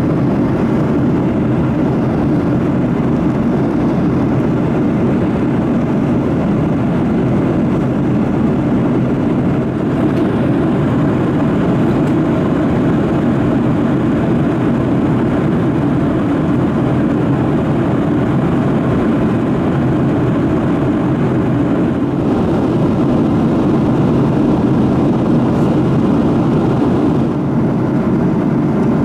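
Steady cabin noise of a Boeing 737-700 in flight: its CFM56-7B jet engines and the rushing air, heard inside the cabin as an even, low rumble with no distinct tones.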